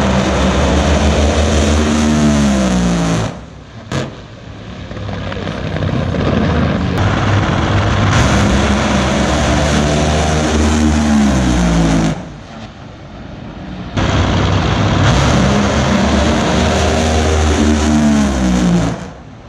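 Drag racing cars running hard down the strip in three separate passes, each lasting a few seconds. The engine note falls in pitch as each car goes by, and each pass cuts off abruptly.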